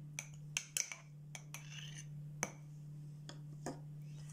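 Scattered light clinks and taps of a spoon and glass jar being handled, about eight in all, the sharpest about halfway through, over a steady low hum.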